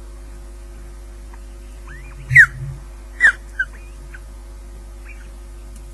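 Ospreys calling at the nest while the chicks are fed: a few short, sharp chirps that slide downward in pitch, three loud ones about halfway through and fainter ones around them, over a steady electrical hum.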